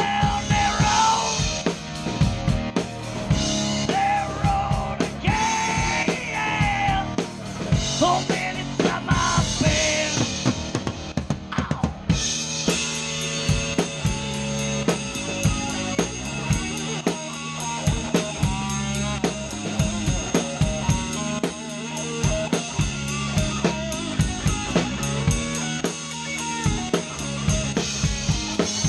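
Live rock band playing an instrumental passage, heard from beside the drum kit, so the drums are the loudest part. From about twelve seconds in, a fast, steady cymbal pattern fills the top of the sound.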